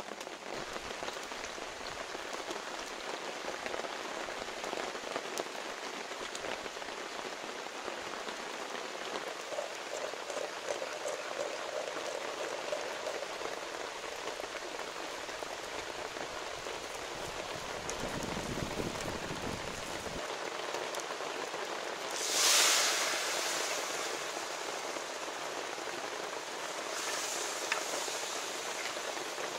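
Hot oil and spice mixture sizzling steadily in a clay pot over a wood fire. About two-thirds through, the sizzle surges suddenly and loudly as more ingredients go into the hot oil, then settles back to a steady sizzle.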